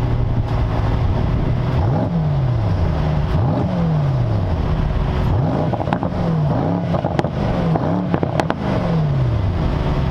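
Mercedes-AMG GT 63 S 4-door's twin-turbo V8 through a valved sport exhaust. The stationary car is revved in about half a dozen short blips and settles back to idle between them. Sharp pops crackle from the exhaust as the revs fall in the later blips.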